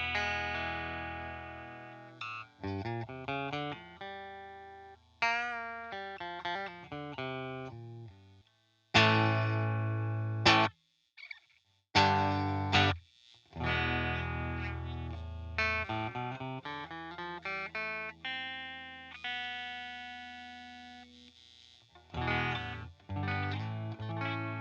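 Electric guitar, a Strat-style partscaster played on its bridge humbucker through a computer amp modeler: runs of picked single notes and ringing chords, with a few abrupt stops, one leaving a second of silence about halfway through.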